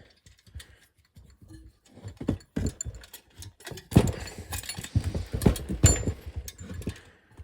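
Irregular metal clinks and knocks from hand tools and small parts of a lawn-mower engine being handled, starting about two seconds in and loudest around four and six seconds in.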